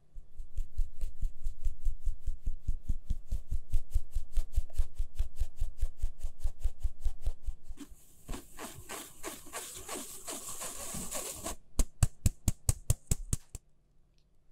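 Fine stainless mesh sieve tapped steadily, about five taps a second, as flour and almond powder sift through it. A few seconds later it gives way to a rough, scratchy rubbing as a fingertip pushes the powder through the mesh, then about eight more sharp taps near the end.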